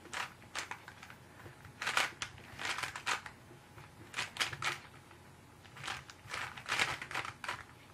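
YJ Guanlong 3x3 speed cube being turned in quick bursts of moves, its plastic layers clicking and scraping in irregular clusters. The cube is unlubricated straight out of the box, which gives the turning a dry, scratchy sound.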